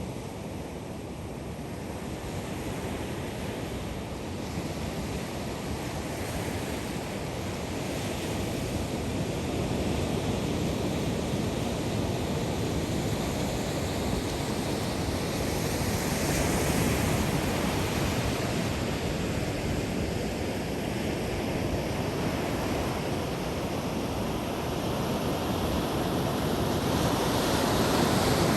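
Ocean waves breaking and washing up on a sandy beach, a continuous rushing that swells and ebbs over several seconds, growing louder toward the end, with some wind on the microphone.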